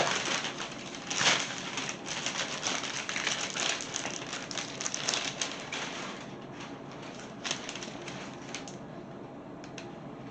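Packaging on a collectible figure being torn and unwrapped, a dense irregular crinkling and crackling that thins out after about six seconds.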